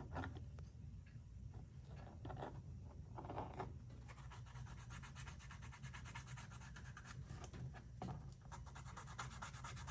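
Faint scraping and rubbing as the cut edge of a leather sheath is worked by hand to clean it up: a few short scrapes, then from about four seconds in a fast, continuous run of fine strokes.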